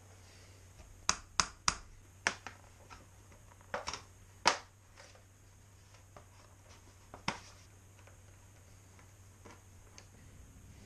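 Sharp plastic clicks and knocks as the radiator shroud is fitted back onto a Honda CRF450L. Several come in quick succession over the first few seconds, the loudest about four and a half seconds in, then a few lighter ticks.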